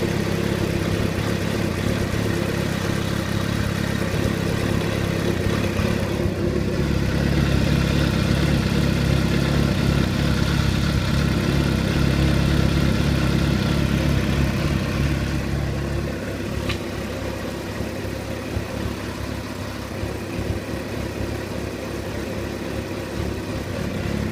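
2006 Suzuki GSX-R600 K6's inline-four engine running steadily, a little higher from about six seconds in, then settling back lower near sixteen seconds. It carries a noise the owner finds suspicious.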